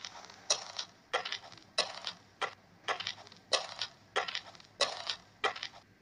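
Footsteps crunching on gravel at a steady walking pace, about nine steps.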